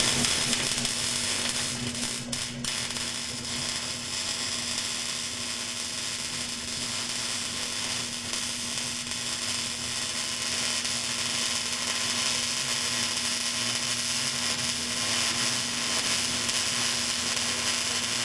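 Electric arc welder laying a continuous weld: a steady crackling hiss over a low, even hum, as the engine-mount bracket is welded onto the go-kart's engine plate.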